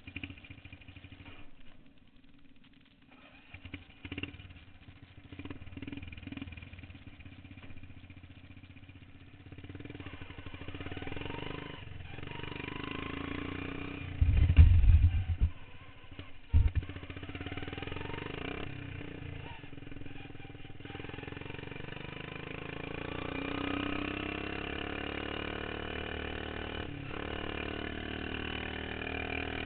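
Modified racing lawn mower engines running and revving, their pitch rising and falling, building up about a third of the way in and then running steadily. Two loud low thumps come about halfway through.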